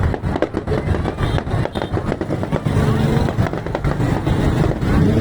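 Fireworks crackling in rapid, irregular pops, with a steady pitched drone, like an engine or horn, coming in about three seconds in.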